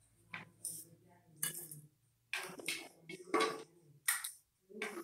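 Rolling pin clicking and clinking against a steel rolling board as a roti is rolled out, in short separate bursts, with voices talking now and then.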